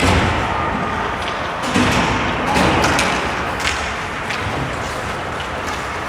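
Several knocks and thuds from ice hockey play, such as sticks, puck and bodies hitting the boards, over a steady hubbub of arena crowd noise. The loudest knocks come right at the start and about two seconds in.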